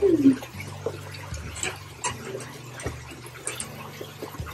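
Water running and splashing in live fish holding tanks, over a low hum that cuts out and comes back several times, with a few faint clicks.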